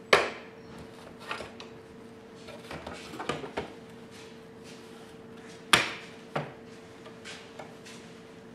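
Knocks, clicks and light clatter as a keypad front panel is handled and pressed onto the metal housing of an electronics unit, with sharp knocks at the very start and again just before 6 seconds in.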